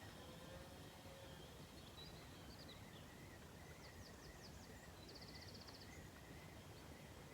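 Near silence: faint steady outdoor background noise, with a few faint small-bird chirps about two seconds in and a short fast trill around five seconds.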